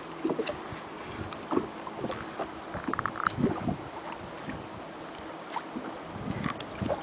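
Wind buffeting the microphone aboard a small boat on a lake, with scattered light knocks and a brief high chirp about three seconds in.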